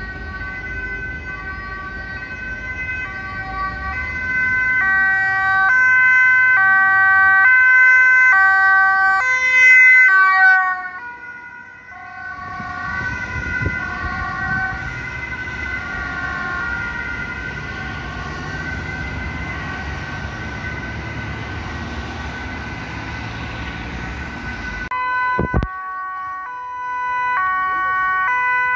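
Two-tone emergency-vehicle sirens, high and low notes alternating about every half second. The first, over a steady tone, is loudest and drops slightly in pitch about ten seconds in as it passes. A passing ambulance's two-tone siren follows, then, after a brief thump, another two-tone siren.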